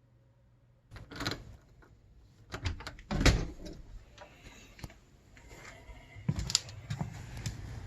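A run of sharp knocks and clicks, with one heavy thump about three seconds in, then a steady low rumble settling in over the last couple of seconds.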